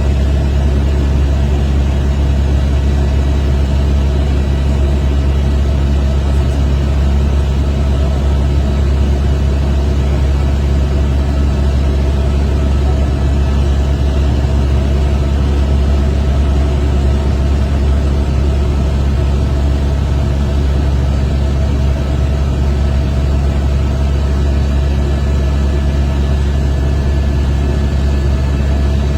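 Helicopter in flight: the steady, unbroken drone of its rotor and turbine engine, deep and constant in pitch.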